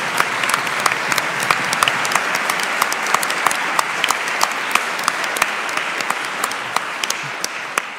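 Audience applauding: many sharp individual claps over a dense wash of clapping, dying down near the end.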